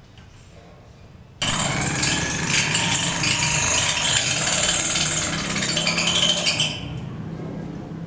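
A power tool starts suddenly and runs loudly for about five seconds, then cuts off, leaving a lower steady hum.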